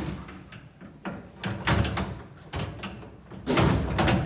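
The metal door of a Nexus N900 machine being fitted onto its hinges. A sharp knock at the start, then several stretches of clunking and scraping, loudest near the end.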